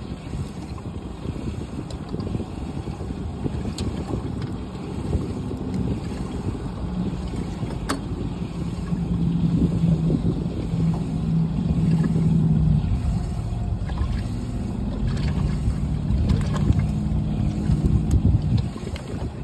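Wind buffeting the microphone on an open boat deck, with a low hum that comes in partway through, swells twice and stops just before the end.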